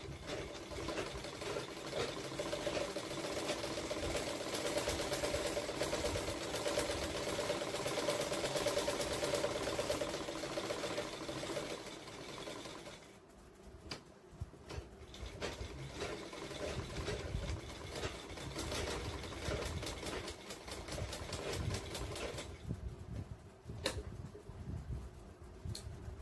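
Straight-stitch sewing machine running in a fast, even rhythm for about twelve seconds, then in shorter, quieter runs, with a few sharp clicks near the end.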